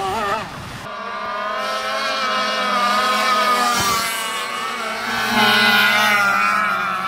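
A radio-controlled speed boat running flat out across the water, its motor giving a steady high-pitched note. The note gets louder about five seconds in as the boat comes closer.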